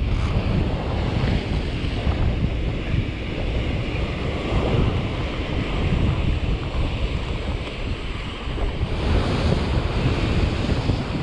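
Rough sea surf breaking and washing over shoreline rocks, with wind rumbling on the microphone. A bigger wave breaks with a louder hiss about nine seconds in.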